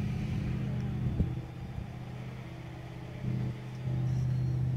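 Steady low engine hum, like an idling motor, that drops in level about a second and a half in and comes back near the end, with one short click about a second in.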